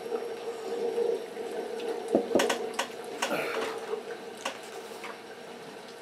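Sipping a drink from a mug, then a few sharp knocks about two seconds in as the mug is set down on the desk, followed by some paper rustling from a book being handled, over a faint steady hum.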